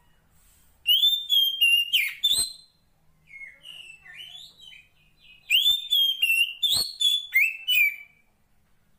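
Female oriental magpie-robin (kacer poci) calling to draw in a male: two loud bursts of quick whistled notes that rise and fall, with softer twittering between them.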